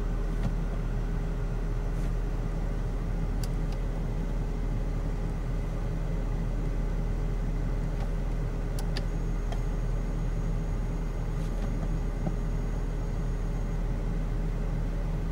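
Four-wheel drive's engine running steadily, a low even rumble heard from inside the cabin, with a couple of faint clicks.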